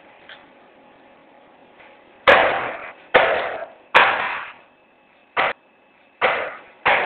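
A series of about six hard knocks or bangs at irregular intervals, starting a couple of seconds in, each dying away over about half a second.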